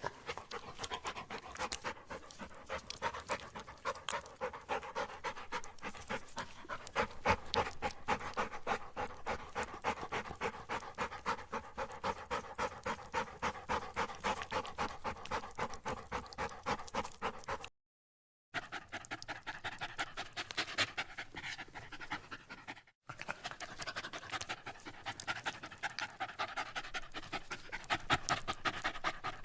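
A dog panting hard and fast, out of breath, in a quick, even rhythm of short breaths. The sound cuts out completely for under a second a little past halfway, and again very briefly about two-thirds of the way through.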